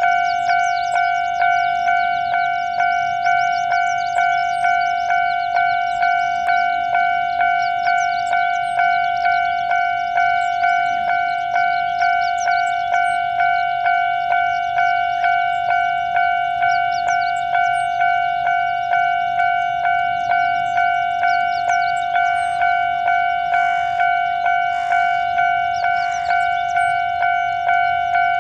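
Japanese railroad crossing warning bell ringing steadily, a clear ringing tone struck about three times every two seconds.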